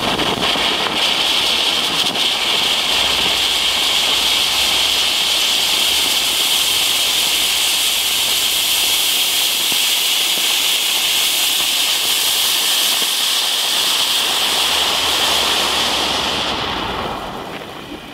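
Ground firework fountain spraying sparks with a steady loud hiss, fading out near the end.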